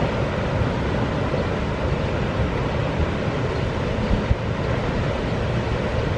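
Steady rushing noise with a low rumble, even throughout, with no distinct events.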